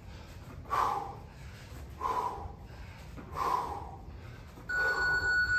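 A man breathes out hard three times, about 1.3 seconds apart, in time with kettlebell swings. About five seconds in, an interval timer gives a steady electronic beep that marks the end of the timed set.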